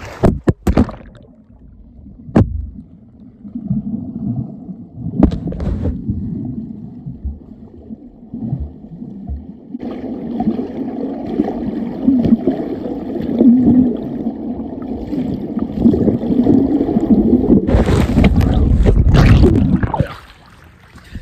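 Water noise on a camera's microphone held below a lake's surface: muffled rumbling and splashing from swimmers, with a few sharp knocks in the first second and a louder burst of splashing near the end.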